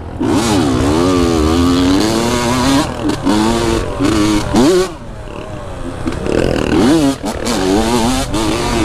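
Dirt bike engine revving up and down over and over as it is ridden, easing off briefly about five seconds in before picking up again.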